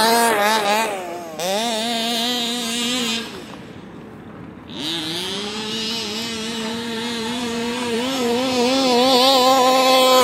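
Small two-stroke gas engine of a 1/5-scale Rovan RC truck running with the throttle worked on and off, its pitch wavering up and down. A little past three seconds it falls back to a quieter idle, then revs up again about a second later and holds a fairly steady high note.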